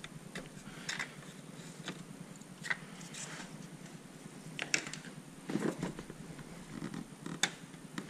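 Screwdriver prying out the plastic push clips on a car's cabin air filter housing: a handful of short plastic clicks and small knocks, spaced a second or more apart, the sharpest about halfway through and near the end.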